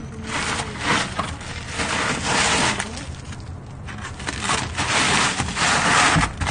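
Plastic vinyl sheeting crinkling and rustling in several irregular bursts as it is peeled up and handled.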